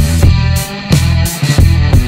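Background rock music with guitar over a heavy, steady beat.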